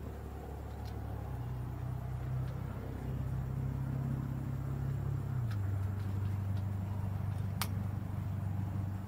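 An engine running at low, steady revs, its pitch stepping up about a second in and down again about halfway through, then cutting off abruptly at the end. A single sharp click near the end.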